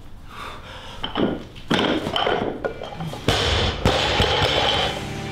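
Intro music building up, with several sharp heavy thuds and hits through it.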